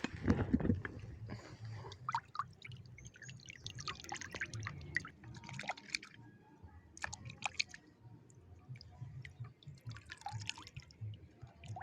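Water splashing and dripping in the shallows: a louder splash at the start, then scattered small drips and splashes.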